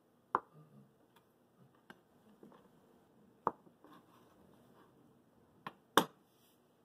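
Chef's knife cutting through soft dough and knocking against a bamboo cutting board: several sharp knocks of the blade on the wood, with a double knock near the end, the loudest, as the knife is laid down on the board.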